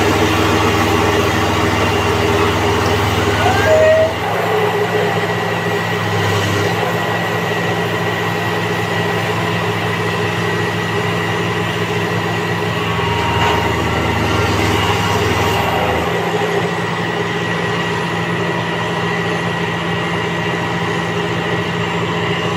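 Excavator diesel engines running steadily under load as they haul a fishing boat up the slipway. The low rumble shifts about four seconds in and swells again for a few seconds near the middle.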